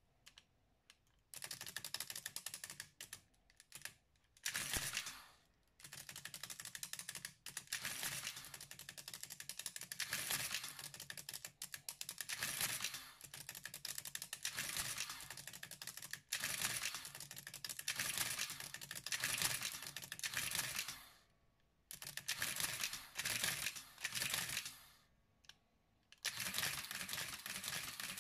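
Olympia mechanical adding machine running through its print cycles: runs of rapid mechanical clatter, a second or more each, with short pauses between, as it prints lines of figures and advances the paper tape. The clatter starts about a second in.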